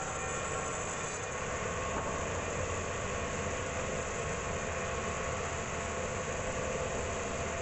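Band sawmill running steadily, a continuous even mechanical drone.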